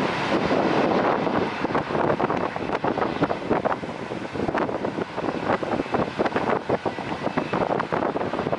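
Airbus A320 with CFM56-5A1 engines taxiing at low thrust as it turns on the runway to line up, its engine noise mixed with gusty wind buffeting the microphone.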